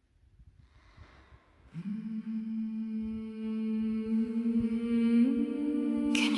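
Background music: a wordless, choir-like humming drone on a held note, coming in a little under two seconds in. A second, higher note joins a little after five seconds, and a brighter layer swells in near the end.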